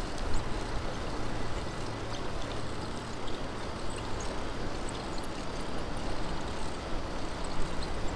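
Strong gusty wind buffeting the microphone during a bike ride: an uneven low rumble over a steady rushing noise.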